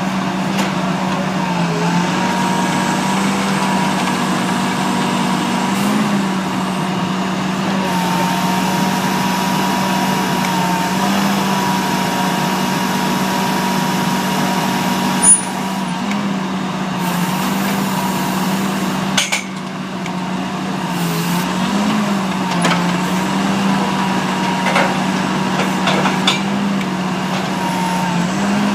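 Rotomax XL GTCi compact drilling rig's engine and hydraulics running steadily while drill pipe is pulled, the pitch sagging and recovering briefly every few seconds as load comes on and off. A single sharp knock about halfway through.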